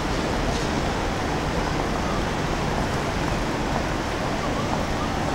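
Steady noise of city street traffic, an even rushing sound with no distinct events.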